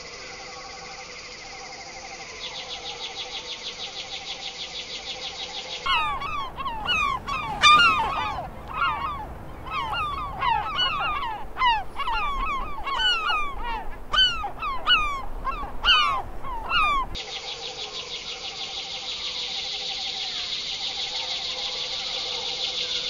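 A fast-pulsing, insect-like buzz. From about six seconds in to about seventeen it gives way to a loud chorus of many animals making short calls that bend in pitch and overlap one another. The buzz returns after the chorus.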